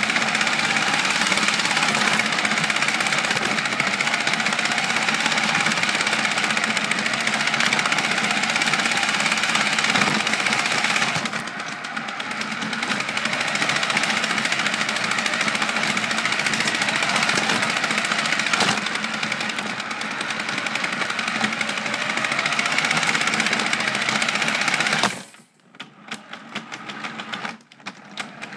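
Remote-control car's motor and drivetrain running, picked up by a camera riding on the car. The sound dips briefly a little under halfway through, then cuts off near the end, leaving scattered faint clicks.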